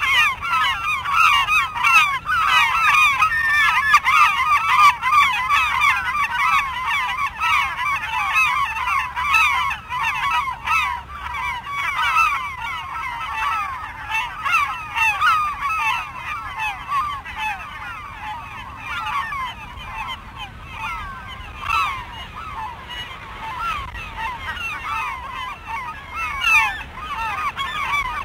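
Many gulls calling at once: a dense, overlapping chorus of short, sharp calls, a little quieter in the second half.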